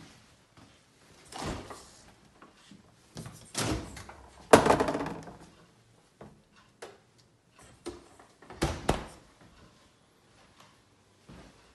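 Doors of a Samsung side-by-side fridge-freezer being opened and shut: a series of knocks and thuds, the loudest about four and a half seconds in with a short ringing after it, and another pair near the end.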